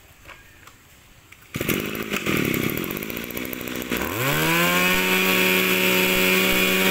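Small two-stroke Mitsubishi brush cutter engine starting up about a second and a half in and idling. About four seconds in it is throttled up, its pitch rising, and it holds steady at high revs.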